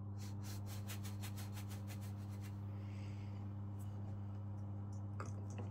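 A plastic fluted scone cutter scraping against dough and a wooden cutting board, a rapid run of scratchy strokes about six a second for a couple of seconds, then a few light clicks near the end. A steady low hum runs under it throughout.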